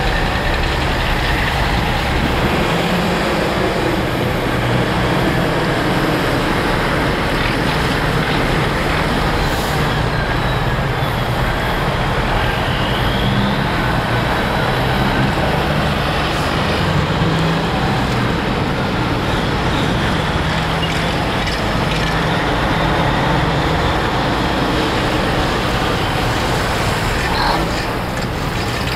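Diesel engines of vintage semi-trucks running as the trucks pull away and drive past one after another, their pitch rising and falling through the gears, over passing road traffic.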